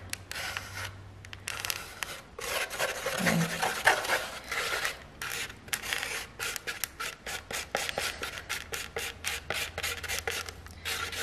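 Plastic palette knife scraping and stirring thick acrylic paint on a paper plate, mixing black into white to make grey, in a run of quick, irregular rubbing strokes.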